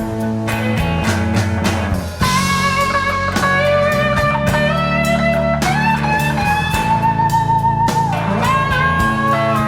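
Blues-rock music in an instrumental break: an electric guitar plays long, held lead notes with a wavering vibrato over bass and a steady drum beat.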